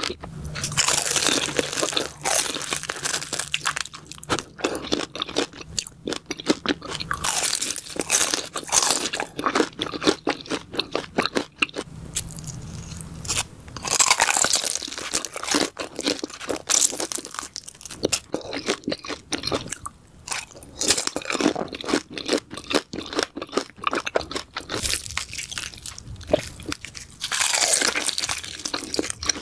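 Close-miked ASMR eating of crispy fried rolls: loud crackling crunches of the crisp skin and chewing, with a big bite about every seven seconds setting off a fresh burst of crunching.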